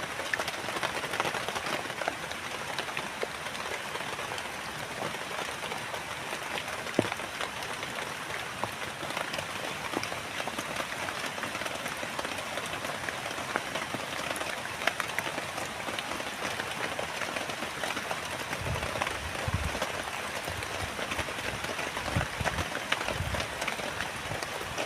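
Steady rain falling, with many individual drops ticking through the hiss. A few low thuds come in the last few seconds.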